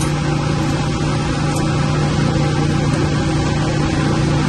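Steady drone of running plant-room machinery: an even rushing noise with a constant low hum under it, unchanging throughout.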